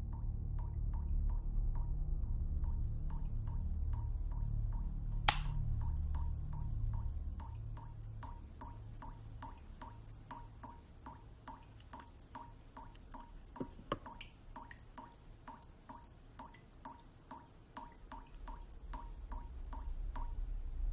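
A tap dripping steadily into a sink, with short, evenly spaced drips a few times a second, over a low drone that fades away after about seven seconds. One sharp click sounds about five seconds in.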